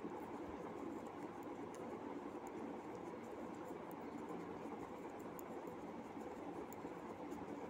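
Faint scattered ticking and scratching of metal knitting needles working yarn, over steady background noise.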